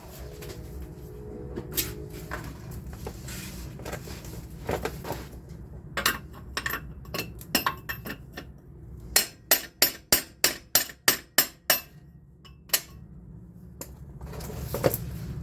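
Hammer blows on metal. There are scattered single strikes, then a quick run of about ten blows at roughly three a second, knocking the CV axle free.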